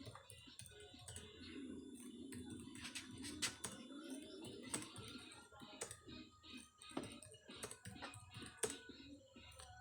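Typing on a computer keyboard: a quick, irregular run of key clicks, with faint music underneath.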